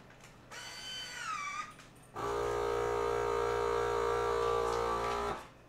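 Countertop vacuum sealer's pump running steadily for about three seconds as it draws the air out of a bag holding a marinated steak, then cutting off suddenly. Just before it starts there is a short pitched sound that falls in pitch.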